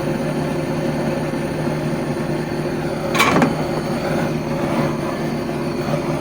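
Steady mechanical hum from a running machine, with one short, loud hissing burst about three seconds in.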